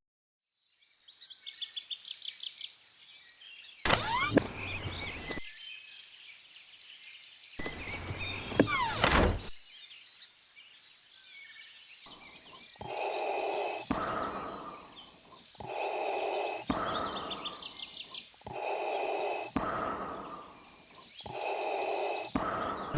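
Birds chirping in rapid high trills. Two louder sweeping sounds come a few seconds in, and over the last ten seconds one sound repeats five times, about every three seconds.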